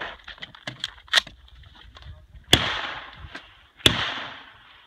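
AR-style rifle fired twice, just over a second apart, each shot sharp with a long echoing tail. Before the shots, a few light clicks and knocks as the rifle is picked up off the table and shouldered.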